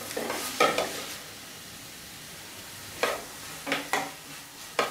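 Onion and tomato sizzling softly in oil in a metal frying pan while a wooden spoon stirs them, knocking and scraping against the pan several times, mostly between three and five seconds in.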